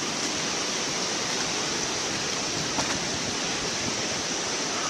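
Steady rushing noise of a hurricane storm, with one faint click about three seconds in.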